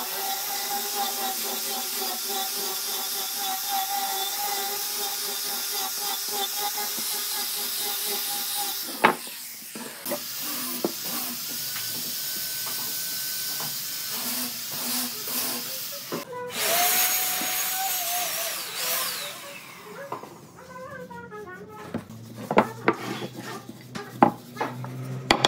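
A woodworking power tool runs steadily with a whine for about nine seconds, then stops with a sharp click. After quieter handling noises it runs again for a few seconds, and its pitch falls as it winds down. A few sharp knocks follow near the end.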